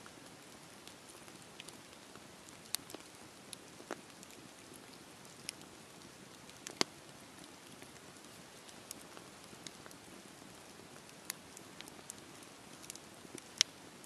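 Split-log campfire burning, with irregular sharp crackles and pops over a soft steady hiss; the two loudest pops come about seven seconds in and near the end.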